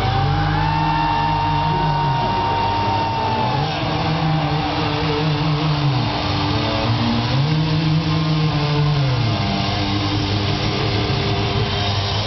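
Live heavy-metal band ringing out held amplified notes at the end of a song, very loud. A low tone slides up and then back down three times, with a steady high note held over it.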